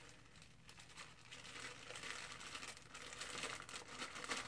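Faint crinkling of a clear plastic packaging bag being handled and opened, in scattered crackles that come thicker from about a second in.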